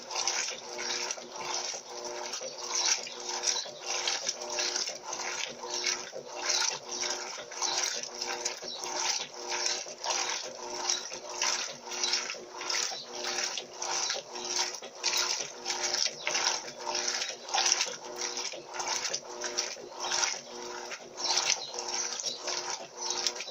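Electrolux Turbo LT12B top-loading washing machine agitating its load, water and wet cloth sloshing back and forth in a steady rhythm of about two swishes a second over the hum of the motor.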